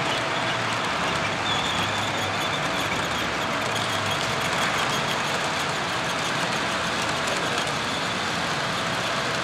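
O-gauge model freight train running along three-rail track behind a Lionel Legacy C&O 2-8-2 Mikado steam locomotive: a steady mechanical rumble and hiss from the wheels and the locomotive's sound system.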